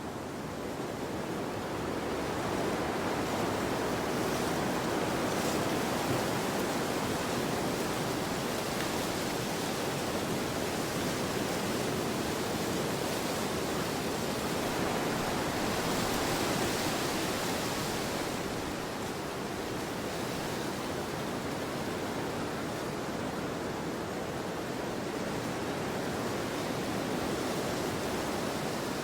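Wind blowing through a snowstorm: a steady rushing that swells in gusts, with a brighter, hissier gust about sixteen seconds in.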